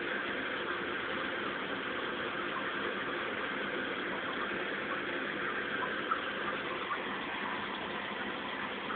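Aquarium pump running: a steady hum with hiss, with a couple of faint clicks about six and seven seconds in.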